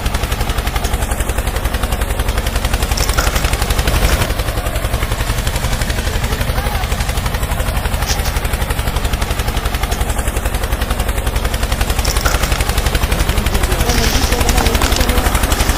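Small tractor engine running with a fast, even putt-putt that carries on without a break and gets a little louder near the end.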